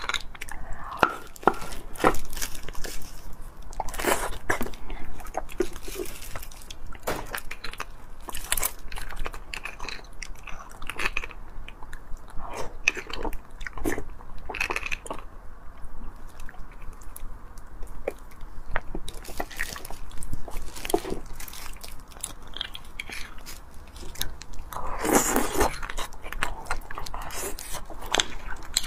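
Close-miked eating sounds: a metal spoon scraping marrow out of split roasted beef bones, with chewing of the marrow, heard as irregular short clicks and scrapes.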